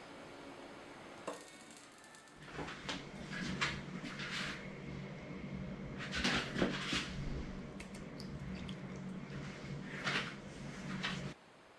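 Kitchen handling sounds: a metal slotted spoon carrying a poached egg is moved and touches a china plate as the egg is slid onto the toast, in several short bursts, over a steady low hum that stops suddenly near the end.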